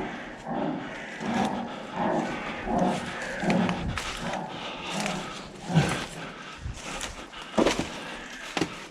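Heavy rhythmic panting, a breath roughly every three-quarters of a second, with a few sharp clicks near the end.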